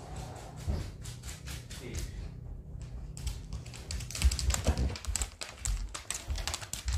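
Dogs' claws clicking and tapping on a wooden floor as they walk about, growing denser and louder about three seconds in, with a few dull paw thuds.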